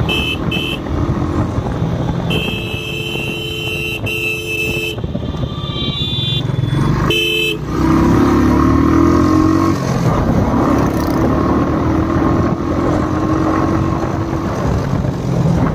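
Royal Enfield Bullet motorcycle running on the road through traffic, with its single-cylinder engine and road noise throughout. Vehicle horns honk several times: a short toot near the start, a long honk from about two to five seconds in, and brief toots around six and seven seconds in. From about eight seconds in the engine note gets louder.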